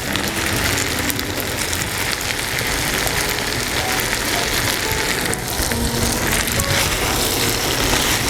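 Pan of spaghetti with fresh tomato, spinach and olives sizzling steadily as it cooks.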